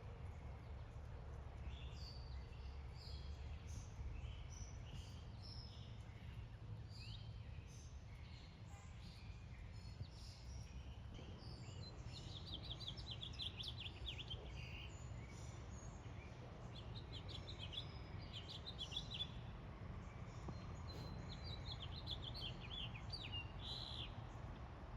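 Small birds chirping, with several quick high trills, over a steady low background rumble.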